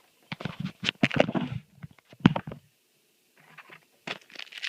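Trading cards and a foil booster-pack wrapper being handled: a run of rustles and taps, a short pause about two and a half seconds in, then denser crinkling near the end as the next pack is picked up.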